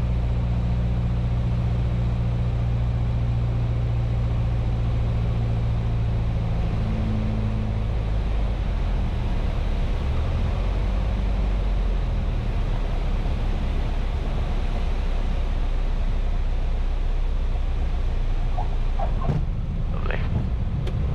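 Single-engine light aircraft's piston engine and propeller heard in the cabin, running steadily on final approach. About eight seconds in the steady engine note drops away as power comes off for landing, leaving a rougher low rumble through touchdown and the rollout. A few brief squeaks near the end.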